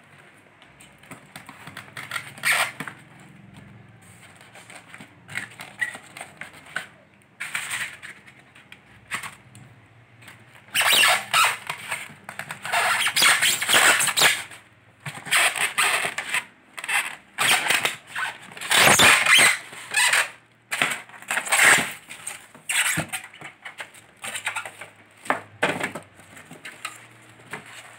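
Polystyrene foam packing inserts squeaking and scraping against a cardboard box and plastic wrapping as they are worked loose and lifted out, in irregular bursts that are busiest in the middle.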